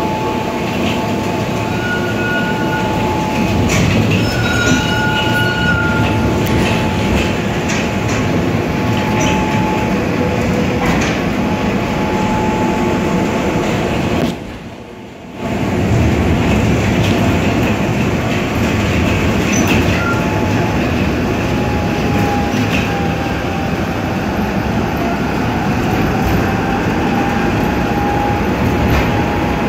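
A moving tram heard from inside: a steady rumble of wheels on rails under a steady whine, with a few brief high squeals in the first few seconds. The sound drops sharply for about a second halfway through.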